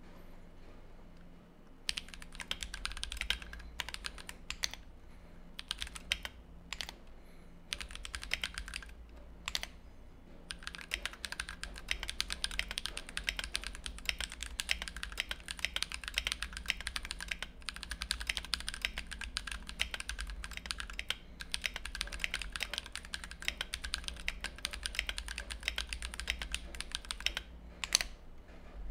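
Mechanical keyboard typing: a Tofu 60 with a brass plate and lubed, filmed Everglide Dark Jade tactile switches under blank PBT OEM-profile keycaps, keys clacking in quick runs. It starts about two seconds in with short bursts and pauses, runs on as steady fast typing from about ten seconds in, and has one louder clack near the end.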